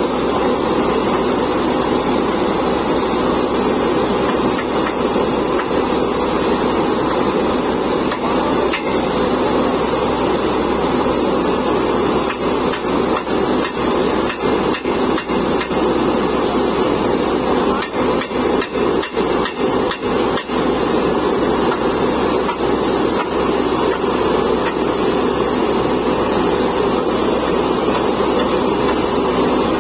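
Truck-mounted borewell drilling rig running: the engine and air compressor drone steadily while the down-the-hole hammer pounds away in the borehole. About halfway through comes a run of sharp knocks with brief dips in the noise.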